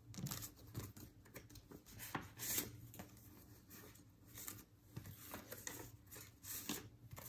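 Faint, scattered rustling of paper dollar bills being counted and handled, with soft slides of paper against paper cash envelopes.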